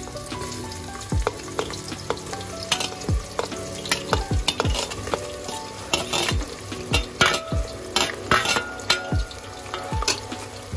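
Sliced onions sizzling and crackling as they go into hot ghee and oil in an aluminium pressure cooker, with many sharp pops. A metal slotted skimmer scrapes and knocks against the plate and the pot as the onions are pushed in and stirred, the start of frying them golden brown.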